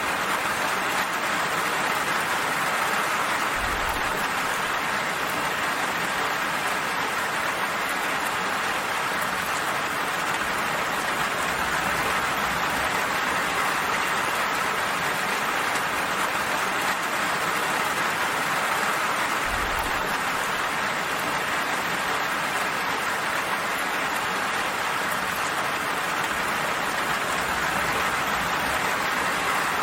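Steady rainfall, an even hiss of rain with no pauses. Two brief, faint low thumps come about four seconds in and again near twenty seconds.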